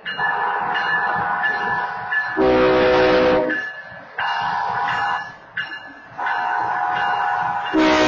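Air horns at a grade crossing. An automated wayside horn sounds a series of long blasts, and the louder, lower horn of BNSF locomotive 5921 blows twice as it arrives: about two and a half seconds in for about a second, and again near the end over the rumble of the passing train.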